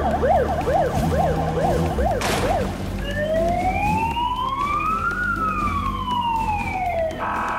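Police siren in fast yelp mode, rising and falling about three times a second, then one slow wail that rises and falls over about four seconds. A brief burst of noise comes about two seconds in, over a steady low rumble.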